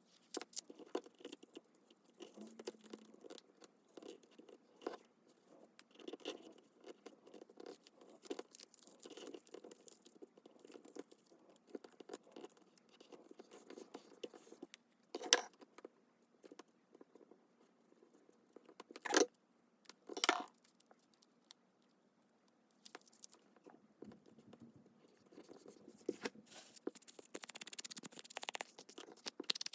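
Hands working paper and craft materials for a junk journal: scattered rustling, light tapping and scraping, with three sharper knocks about halfway through and denser paper rustling near the end.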